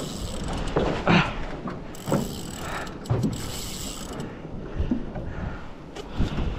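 Daiwa Saltiga 8000 spinning reel working under load with a big fish on the line: its mechanism clicks and whirrs in irregular bursts as line is pulled and wound.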